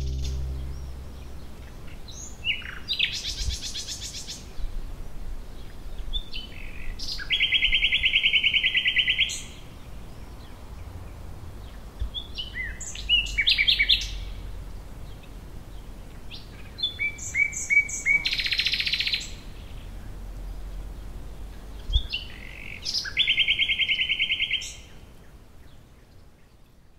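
A songbird singing five short phrases about five seconds apart, each made of quick chirps ending in a fast, buzzy trill, over a faint steady outdoor hiss.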